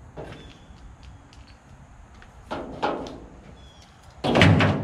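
Short bursts of compressed air from an air-compressor hose, with a louder, longer blast about four seconds in.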